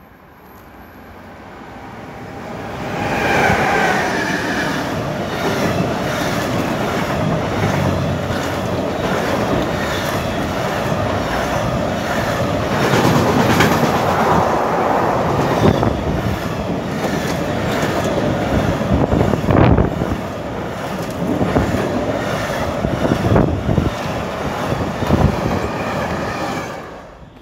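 Freight train carrying truck semi-trailers approaching and passing close by. Its rumble builds over the first few seconds, then the wagons clatter steadily over the rails, with occasional sharp knocks from the wheels.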